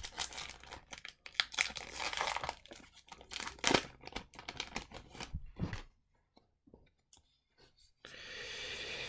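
Foil Magic: The Gathering booster pack wrapper being torn open and crinkled by hand: a run of sharp crackles and rips lasting about six seconds. After a short quiet gap, a soft steady hiss runs for about two seconds near the end.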